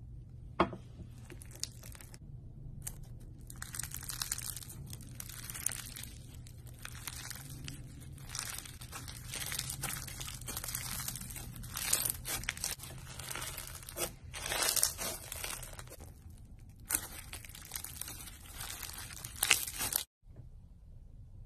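Floam, slime packed with small foam beads, squeezed and pulled apart by hand: a dense crunching and crackling full of sharp little pops. It stops abruptly near the end.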